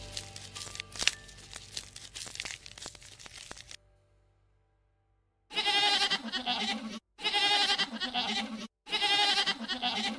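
Goat bleating: three long, quavering bleats in quick succession starting about halfway through, the last still going at the end. Before them come a few seconds of crackling and clicking, then a short silence.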